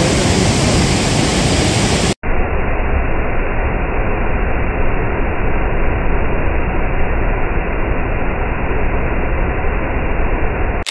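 Waterfall's rushing water, a loud steady roar. About two seconds in it cuts briefly and comes back duller, with the highs gone.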